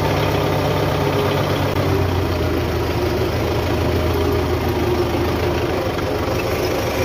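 Tractor's diesel engine running steadily at low revs, heard from inside the cab.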